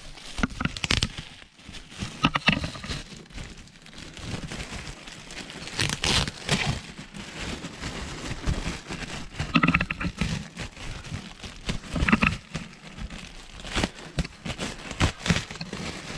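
Plastic packaging crinkling and rustling in irregular bursts, with scattered clicks and knocks, as parts are handled.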